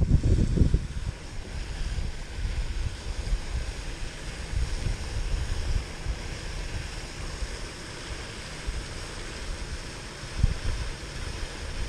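Wind buffeting the microphone in gusts, strongest at the start and again about ten seconds in, over a steady hiss.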